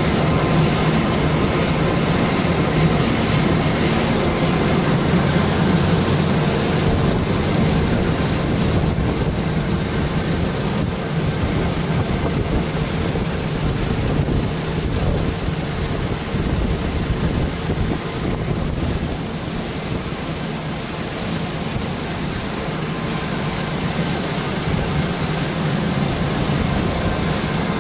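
Wood sawdust pellet production line with its pellet mills running: a loud, steady industrial machinery noise with a low hum underneath.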